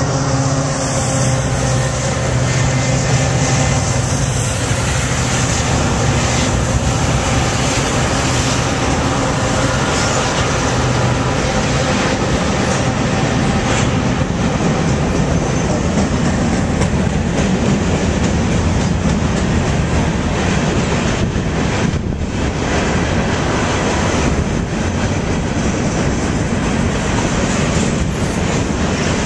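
Freight train passing close by: the diesel locomotives' engines drone through the first dozen seconds, then give way to the steady rumble and wheel clatter of a long string of covered hopper cars rolling over the rails.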